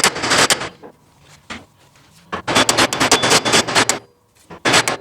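Rapid metal-on-metal hammer taps driving the rebuilt roller detent into a GM door hinge: a run of strikes at the start, a quicker run of about a dozen from about halfway, and two more near the end.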